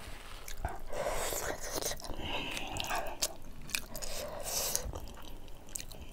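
Close-miked chewing of a mouthful of rice and curry, with irregular wet smacks and mouth clicks. Fingers mix the next handful of rice on a steel plate at the same time.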